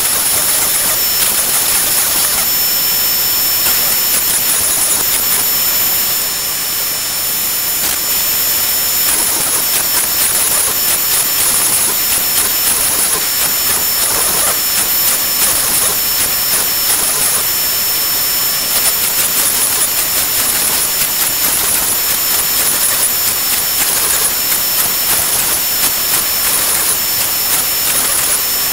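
Shapeoko XXL CNC router's trim-router spindle running at high speed, a steady high-pitched whine, as its bit cuts pockets in Baltic birch plywood, over the rushing hiss of dust extraction through the hose on the dust shoe.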